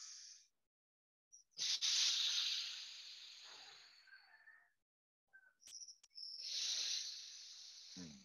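Alternate-nostril breathing (nadi shodhana): long hissing breaths through one nostril at a time, each starting strong and tailing off. One fades out about half a second in, a second runs from about one and a half to nearly five seconds, and a third from about six to eight seconds. A couple of faint clicks come between the second and third.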